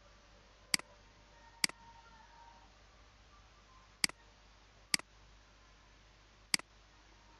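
Computer mouse button clicking five times, each a single sharp click: two about a second apart, two more about a second apart some three seconds later, and a last one near the end.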